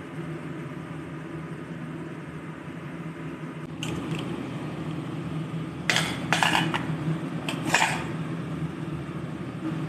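Metal kitchen utensils and a pot clattering: a light knock about four seconds in, then two short bursts of clinks around six and eight seconds in, over a steady low hum.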